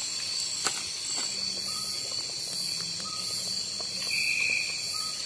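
Night insects, crickets among them, trilling in one steady high tone, with a brief second call about four seconds in and a single light tick a little under a second in.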